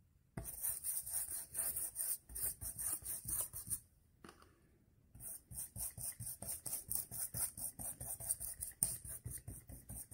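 Paintbrush scrubbing and dabbing thick paint onto a scored Selitac foam underlay sheet in quick, even strokes, about five a second, with a short pause about four seconds in. The base coat of black, silver-grey and white glue is being worked generously into the scored stone pattern.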